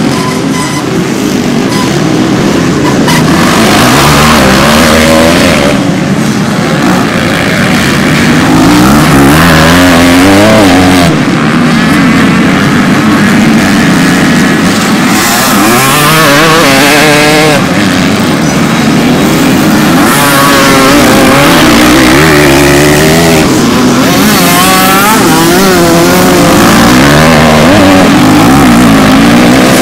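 Several motocross and enduro dirt bikes racing past on a dirt track. Their engines repeatedly rev up in pitch and drop back as the riders shift and accelerate.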